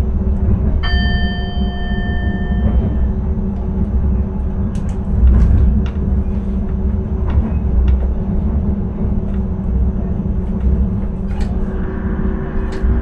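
Intercity train running, heard from the driver's cab: a steady low rumble of wheels on rail. About a second in, a clear ringing tone sounds for about two seconds, and a few sharp clicks come later.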